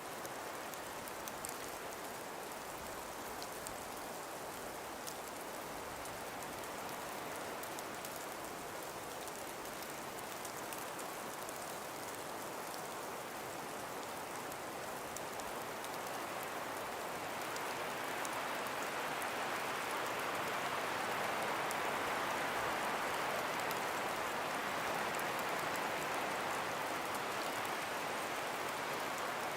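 Breeze through frost- and ice-covered forest trees: a soft, even rush with faint light ticks, swelling somewhat louder a little past halfway.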